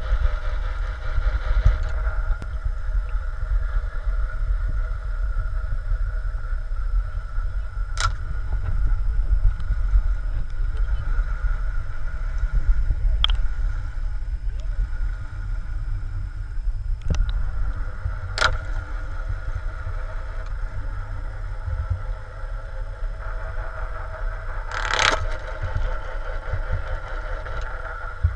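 Underwater sound picked up by a submerged camera: a steady low rumble with a faint hum on top, broken by about five sharp clicks, the loudest near the end.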